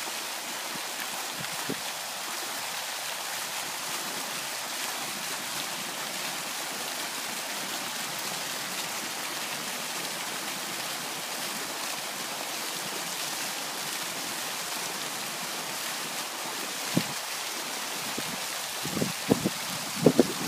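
Steady rushing splash of a fountain's water jet falling back into a shallow pool, with a few short, louder splashes near the end as a dog paws at a frisbee in the water.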